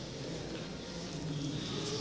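Indistinct murmur of people talking at a distance, with a few faint clicks like footsteps.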